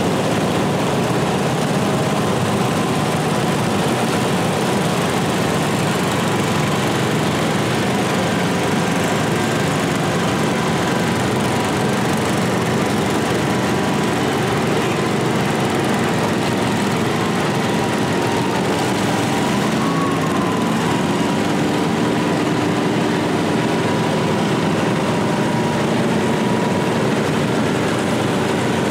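Engines of several small garden tractors running steadily as a line of them drives slowly past, one after another, several engine notes sounding at once.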